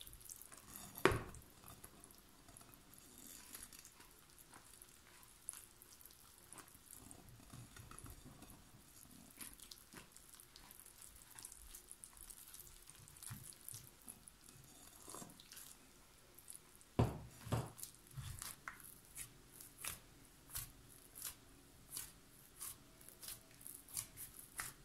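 Hands mixing flour into a soft yeast dough and kneading it in a plastic bowl: faint squishing and soft knocks. A louder thump comes about a second in and again about two-thirds of the way through, followed by a run of soft presses about two a second.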